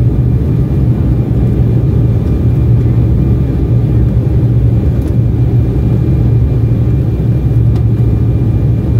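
Loud, steady cabin roar inside an Embraer 175 twin jet in flight, from its GE CF34-8E turbofan engines and the rushing airflow, heard from a window seat over the wing. A strong low hum runs under it.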